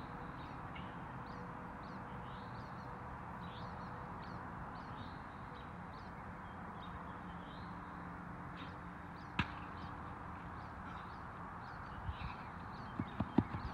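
Birds chirping over and over against a steady outdoor background hum, with one sharp knock about nine seconds in and a few soft knocks near the end.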